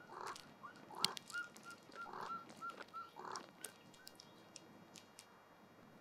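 Birds calling: four rough, harsh calls spread over the first few seconds, with a quick run of short, clear notes between them. The calling dies away after about four seconds.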